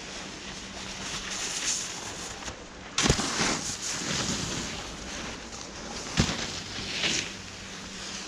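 Wind buffeting the microphone in gusts, a rough hiss that swells and fades several times, with two sharp knocks, one about three seconds in and one about six seconds in.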